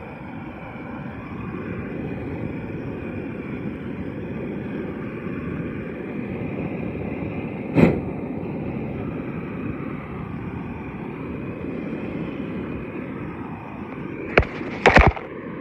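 Propane weed-burner torch running steadily as it is played over dry corn stalk residue. A sharp knock comes about eight seconds in, and two more close together near the end.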